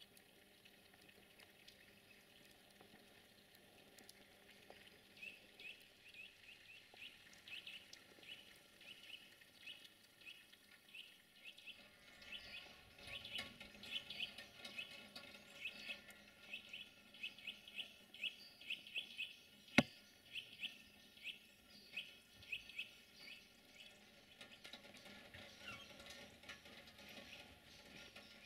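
A small bird calling over and over, a run of short high chirps about twice a second. One sharp click about two-thirds of the way through.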